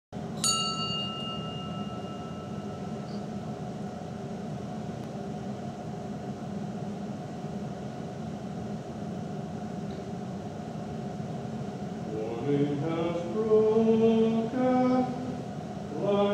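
A small bell is struck once near the start and rings out, fading over about two seconds, over a steady sustained drone. About twelve seconds in, chanted singing begins, its held notes stepping up and down.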